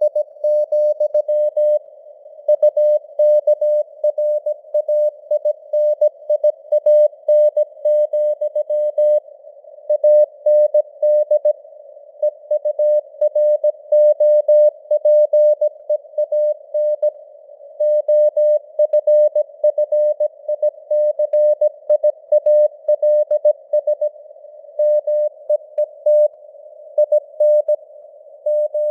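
Morse code (CW) at 17 words per minute: a single mid-pitched tone keyed in dots and dashes, with short gaps between letters and longer ones between words. It plays over a narrow band of hiss, as from a radio receiver.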